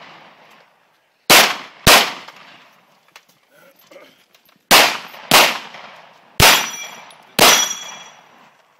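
Six handgun shots: two pairs about half a second apart, then two more a second apart. Each report echoes briefly, and struck steel targets ring after the last two.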